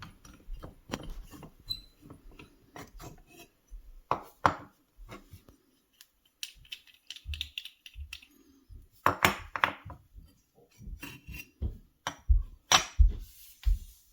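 Rusty metal parts of an old hand plane being handled and taken apart: irregular clinks, scrapes and knocks of metal on metal and on the bench, with a few louder knocks about four seconds in and again near the middle and toward the end.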